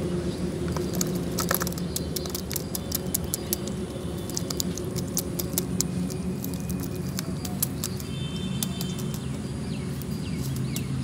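Small fish flipping and flapping in a plastic basin, giving an irregular patter of light taps and clicks. A steady low hum runs underneath.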